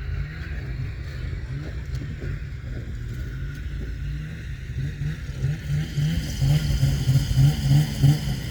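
Snowmobile engine running steadily, getting louder and pulsing about three or four times a second in the last few seconds.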